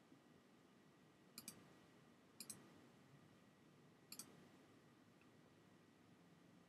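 Computer mouse button clicked three times, each click a quick pair of faint ticks, over low background hiss.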